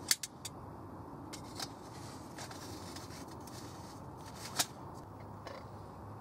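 Aluminium Trangia 27 cookset clinking as a pot and kettle are set onto the lit spirit burner: a few sharp metal clicks right at the start and one louder click a little past halfway.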